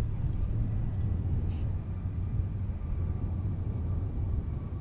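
Twin-engine jet airliner's engines at takeoff power during its takeoff roll: a steady low rumble, with a faint steady whine above it in the second half.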